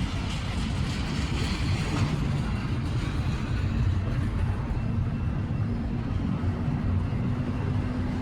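Freight train rolling past at steady speed: a continuous rumble of car wheels on the rails. A faint steady tone joins about five seconds in.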